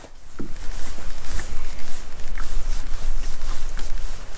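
Wind buffeting the microphone over open water, a steady low rumbling noise, with a few faint knocks about a second apart.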